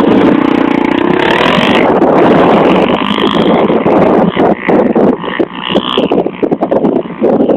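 Enduro motorcycle engine revving hard as it climbs, its pitch gliding early on and the sound turning choppy and uneven in the second half.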